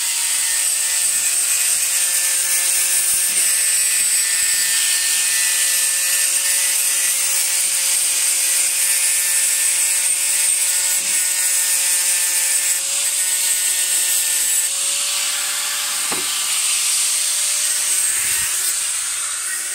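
Corded angle grinder running steadily, its disc grinding rust off a small anvil: a constant motor whine over a scraping hiss, easing a little in the last few seconds.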